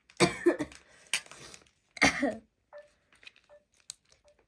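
A person coughs three times, short throaty bursts in the first half, followed by faint clicks of a metal fork stirring noodles on a plastic plate.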